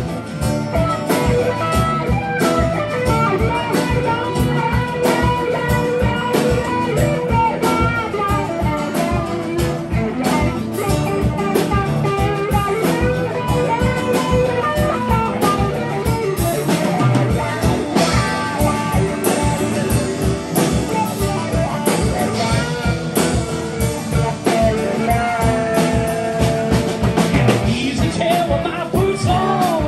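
Live band playing amplified through a club PA: a drum kit keeps a steady beat under bass guitar, acoustic guitar and electric guitar.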